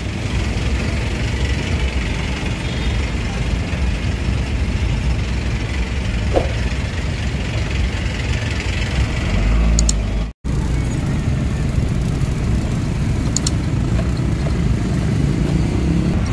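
Steady engine rumble and road noise from a vehicle driving through city traffic, heard from on board. The sound cuts out completely for a moment about ten seconds in.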